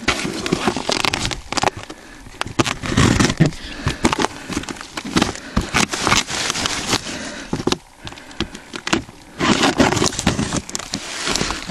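A cardboard fireworks case being opened by hand: crackling, tearing and rustling of cardboard and packing, with scrapes and small knocks throughout.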